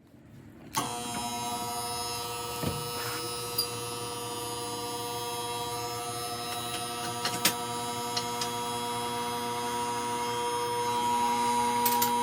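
A steady hum with an even pitch, starting about a second in, with a few light clicks over it.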